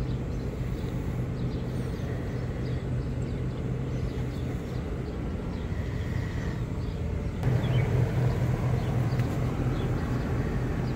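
A steady low hum over a rumble of outdoor noise, stepping up suddenly in level about seven seconds in, with short high chirps scattered above it.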